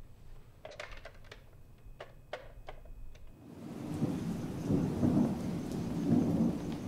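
A string of about eight sharp clicks and knocks, then about halfway through a sudden switch to a steady, low, rumbling wash of noise.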